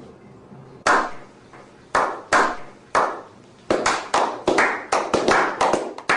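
A series of sharp claps or knocks, each ringing out briefly: a few spaced strikes at first, then quickening into a faster, uneven run about three and a half seconds in.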